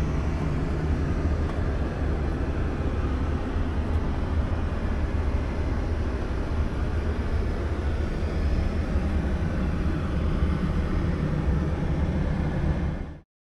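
Steady in-flight cabin noise of a Boeing 737-700 at cruise, a low rumble of engines and airflow, heard inside the aircraft lavatory. It cuts off suddenly near the end.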